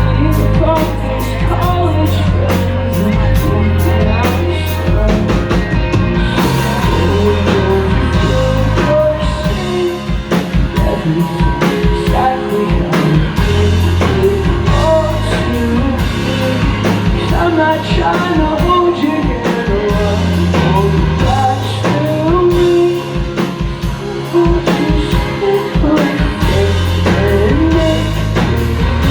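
Live rock band playing loudly: drum kit, guitars and bass, with a sung vocal line that comes in several seconds in.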